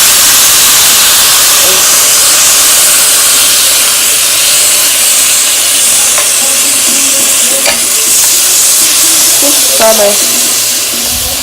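Ground meat sizzling loudly in a hot pan just after going in, a steady frying hiss. A few short scrapes of a utensil come through in the later seconds.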